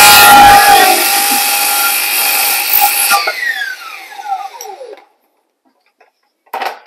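Cordless circular saw cutting into a pine frame rail to notch it, the motor running at full speed through the wood. About three seconds in the trigger is released and the blade spins down with a falling whine that dies away over about two seconds. A couple of short knocks follow near the end.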